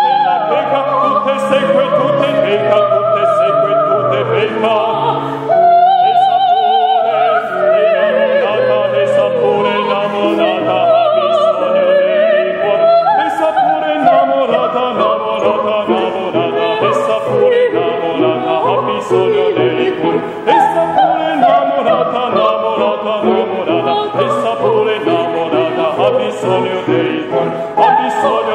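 Soprano and male opera singer singing an operatic duet with grand piano accompaniment, their voices held with wide vibrato.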